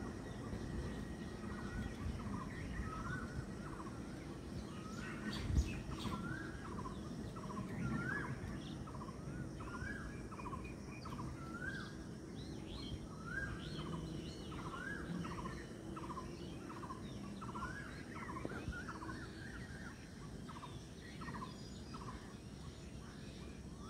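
A bird calling over and over, a short note that rises and then drops, roughly once a second, over the low rumble of the passenger train pulling away. One sharp knock about five and a half seconds in.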